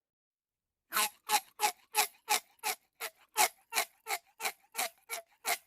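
A rapid, evenly spaced series of short crunching or scraping strokes, about three a second, starting about a second in.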